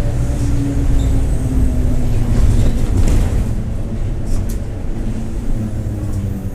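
Mercedes-Benz OF-1721 city bus running on the road: a steady diesel engine drone under a whine from the growling rear differential, the whine's pitch falling slowly as the bus slows. A couple of brief rattles come in the middle.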